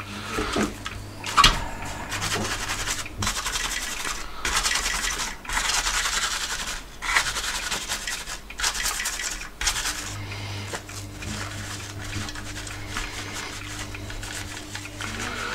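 Paper tissue rubbing and scrubbing over the solder side of a printed circuit board in irregular scratchy strokes, wiping off flux residue left from wave soldering. The strokes are strongest over the first two thirds and lighter near the end.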